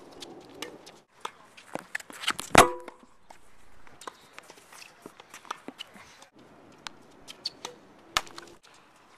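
Tennis rally on a hard court: a string of sharp pops from racket strings striking the ball and the ball bouncing on the court. The loudest hit, about two and a half seconds in, rings briefly.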